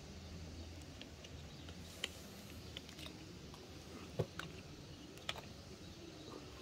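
A few faint, sharp clicks and taps of plastic toys being handled, the loudest about four seconds in, over a low steady room hum.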